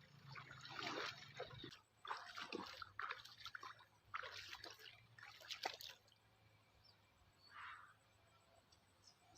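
Water splashing and dripping in irregular bursts, dying down after about six seconds.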